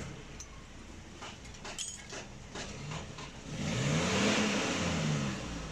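A few light clicks, then a motor vehicle's engine gets louder about three seconds in, its note rising and then falling over about two seconds.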